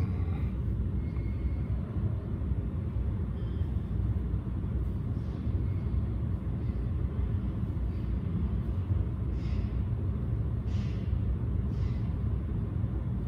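Steady low background rumble. A few faint, brief swishes come near the end.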